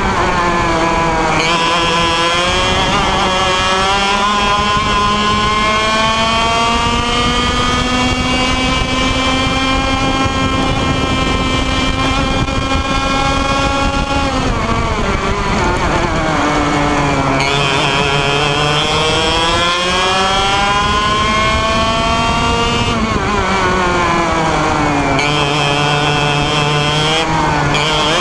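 IAME Leopard 125cc two-stroke kart engine at racing speed, heard on board: the revs climb steadily for about fourteen seconds, fall sharply off the throttle, climb again, then drop and pick up once more near the end.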